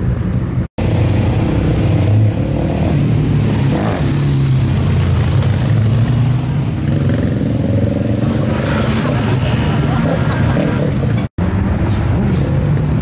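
Loud car engines running and revving as performance cars pull away, with several rises in pitch. The sound cuts out abruptly twice, about a second in and near the end.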